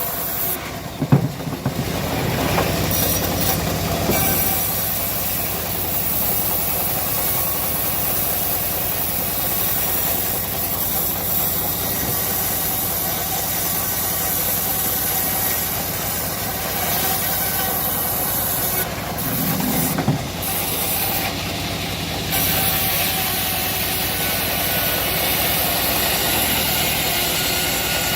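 Homemade bandsaw mill running steadily and cutting through a teak log, with its motor running under the blade's rasp. There are a few sharp knocks about a second in and again about two-thirds of the way through.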